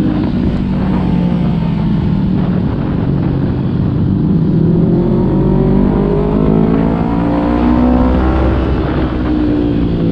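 Kawasaki Z250 motorcycle engine through a SeaPro aftermarket muffler, running under way: its pitch rises and falls several times as the rider rolls the throttle on and off through corners.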